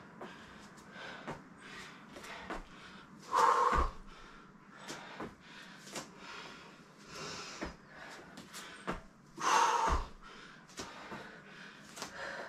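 Hard breathing during squat jumps to the knees: two loud forceful exhales, about six seconds apart, each ending in a dull thud as bare feet land on an exercise mat. Faint knocks and quieter breaths come in between.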